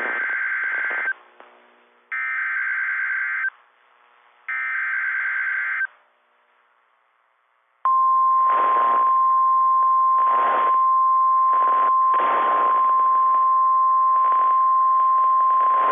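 NOAA Weather Radio emergency alert opening: three bursts of SAME header data tones, each a little over a second long with about a second between them, then, after a short pause, the steady 1050 Hz warning alarm tone starting about 8 seconds in. Several short bursts of noise break over the alarm tone. Together these tones mark the start of a new warning-level alert, here a severe thunderstorm warning.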